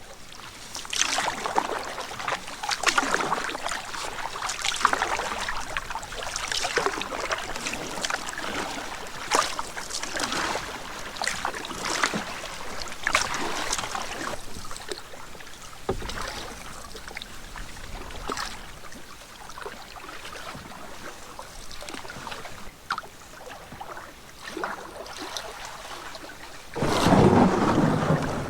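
Canoe paddle strokes in lake water, a swish about every one and a half seconds, fading somewhat in the second half. Near the end comes a louder, deeper rush.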